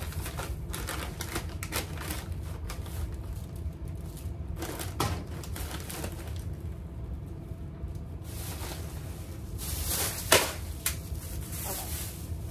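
Plastic snack bags crinkling and rustling, with many small clicks and knocks as packages are moved around in a basket. The crinkling grows louder a little past the middle, and there is one sharp knock about ten seconds in.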